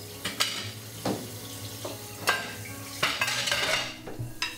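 Dishes and glassware clinking and knocking at a kitchen sink as they are handled for washing: several separate clinks, with a busier stretch about three seconds in.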